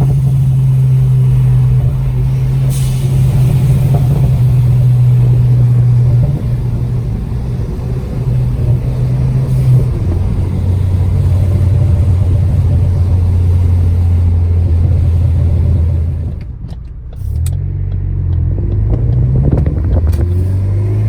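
Ford Focus ST's turbocharged four-cylinder engine and aftermarket exhaust, running at a steady drone that drops to a lower steady note about ten seconds in. A few seconds later the throttle lifts, the revs rise and fall, and sharp exhaust crackles and pops sound from the crackle tune near the end.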